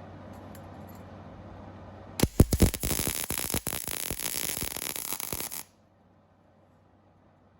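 Electric welder arc crackling for about three seconds as cracks in a steel seat bracket are welded up, starting after a low steady hum and stopping abruptly.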